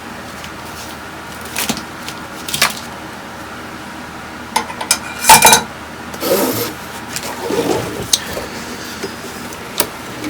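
Metal parts and tools being handled: scattered clicks and clattering, with the loudest clatter about halfway through and softer rustling after it.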